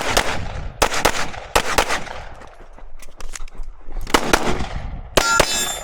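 Rapid pistol fire in a practical shooting stage: shots come in quick pairs and strings, each with an echo, with a lull of about two seconds midway. Near the end, more shots come with a short metallic ringing.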